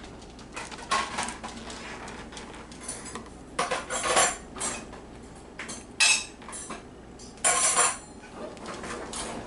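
Metal cutlery clinking and scraping against a dish while someone eats, in several separate sudden clatters, the loudest two thirds of the way through.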